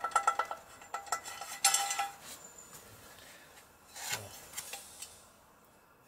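Metallic clicking and ringing from the freshly fitted oil pump drive gear of a Yamaha XS650 engine as it is turned by hand in the alloy crankcase. The clicking stops about two seconds in.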